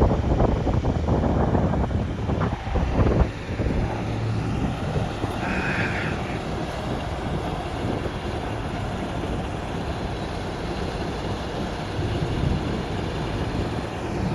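Heavy diesel machinery running steadily outdoors, with wind buffeting the microphone in gusts that are loudest in the first few seconds. A brief higher-pitched squeal comes a little before the middle.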